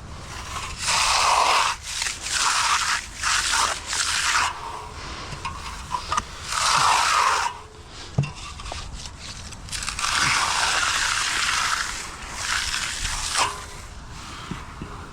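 A finishing tool scraping across wet concrete in a series of slow strokes, each lasting about half a second to two seconds, with short pauses between them. The surface is being smoothed slowly to avoid chatter marks.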